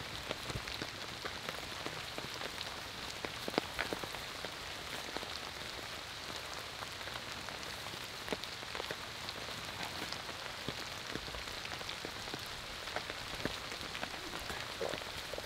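Steady rain pattering on the tarp overhead, heard from underneath it, with scattered sharper drop hits.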